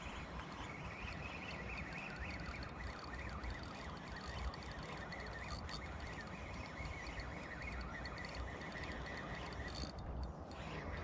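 Spinning reel being cranked steadily, winding in line against a hooked asp, over a steady rushing noise; the winding breaks off briefly near the end.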